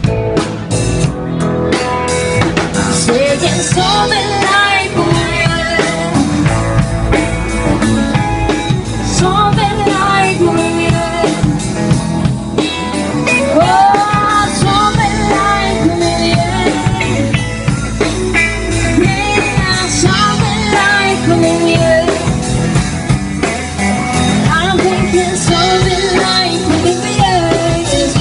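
A live rock band playing: a drum kit and an electric guitar keep a steady groove while a woman sings a wavering melody into a microphone over them.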